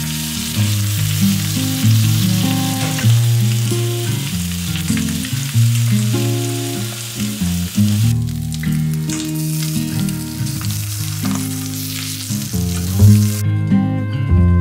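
Bacon and eggs sizzling in a frying pan over soft background music. The sizzle fades briefly around eight seconds in and cuts off near the end, leaving only the music.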